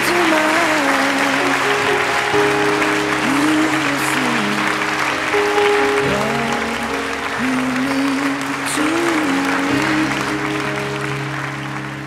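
Guests' applause over background music with a wavering melody and held notes; the clapping thins out toward the end.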